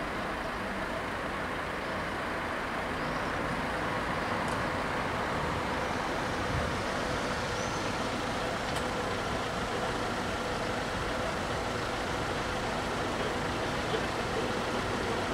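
Steady road-traffic noise from vehicles idling and running at a closed level crossing, with a few faint steady tones and no clear rhythm.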